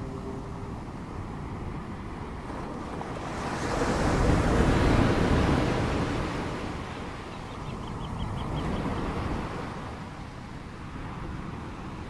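Ocean waves washing in: a steady rush of surf that swells to its loudest about four to five seconds in and rises again more gently around eight to nine seconds.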